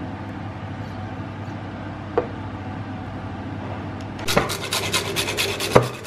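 A short click about two seconds in, then from about four seconds a run of quick, even scraping strokes, about five a second, with one sharper knock near the end: a kitchen utensil working on food or a board during cooking preparation.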